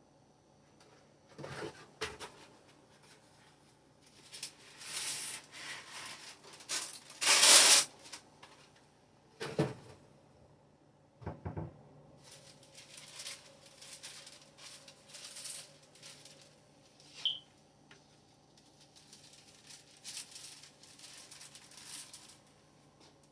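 A microwave oven runs with a faint steady hum, then gives one short high beep as it finishes. Around it there is rustling and handling of paper and dishes, with a few sharp knocks.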